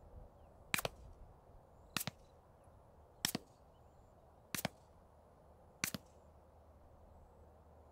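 Five suppressed 9mm pistol shots from an STI 2011 fitted with a CGS Group Kraken 9 suppressor, firing Fiocchi 158-grain subsonic ammunition. The shots are sharp and evenly paced, about one and a quarter seconds apart.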